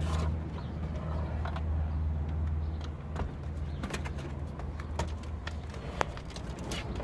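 Scattered light clicks and knocks of a plastic car dashboard assembly being lifted and handled, over a steady low hum.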